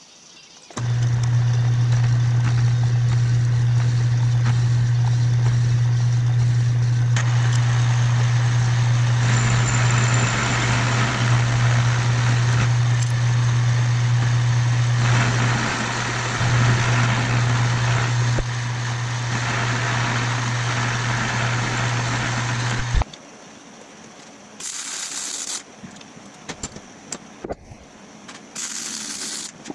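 Metal lathe running, turning a metal tube in a four-jaw chuck: a steady motor hum with a lower tone, and the noise of the cutting tool swelling twice as it takes cuts. The lathe stops about 23 seconds in, and two short hisses follow near the end.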